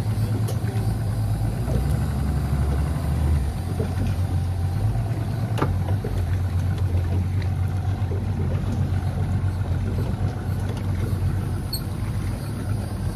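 Boat's outboard motor running steadily at low speed with a low hum; its low note deepens for a couple of seconds about two seconds in.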